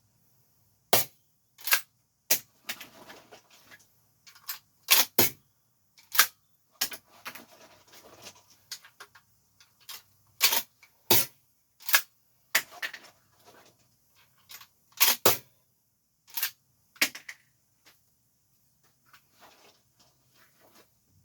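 APS CAM870 MK3 airsoft pump-action shotgun being loaded and cycled by hand: sharp plastic-and-metal clacks of the pump racking back and forward, some in quick pairs, with softer rattling of shells being pushed in and handled between them.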